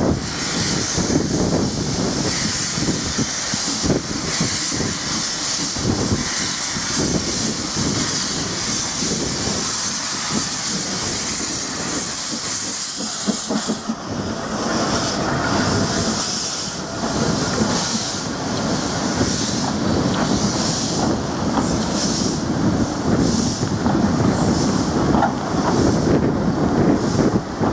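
Narrow-gauge steam tank locomotive starting away from a standstill, steam hissing loudly from around its cylinders over slow exhaust beats. Partway through the hiss dies down, and the beats come quicker and more regular as the train gathers speed and the carriages rumble past.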